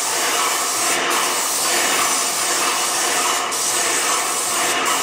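Paint sprayer spraying a ceiling with a steady hiss, broken by a few very short gaps where the spray stops for a moment.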